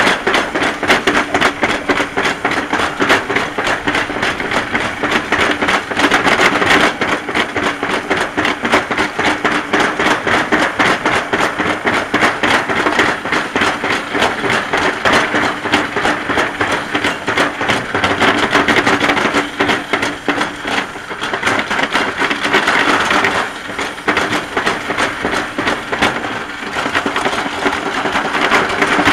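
Summer toboggan sled running fast down a metal trough track, rattling and clattering continuously with a steady hum underneath.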